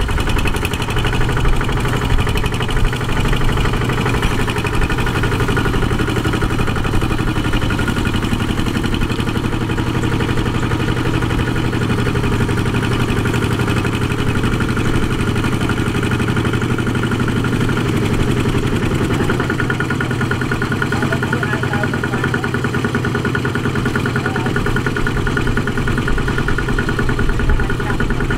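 Single-cylinder diesel engine of a two-wheel walking tractor running steadily with a fast, even beat; its note shifts slightly about two-thirds of the way through.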